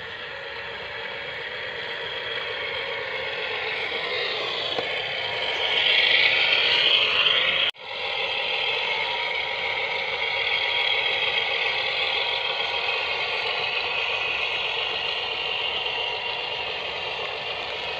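Radio-controlled model trucks driving, their small electric motors and gears whirring with some rattle, growing louder as they come closer. A sudden brief dropout about eight seconds in, then a single loaded model truck running steadily.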